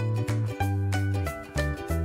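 Upbeat instrumental background music with a bass line moving note by note under a lighter melody.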